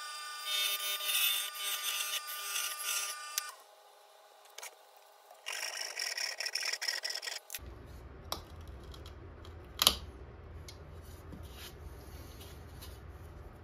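Wood lathe running while a parting tool cuts into the tenon of a small black locust bowl; the lathe stops after about three and a half seconds. About two seconds later a handsaw makes a short run of quick strokes through the remaining stub to free the bowl, and a single sharp knock follows near ten seconds.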